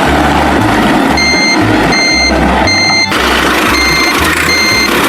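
Vehicle reversing alarm beeping, three beeps then two more after a short pause, over a steady low engine rumble.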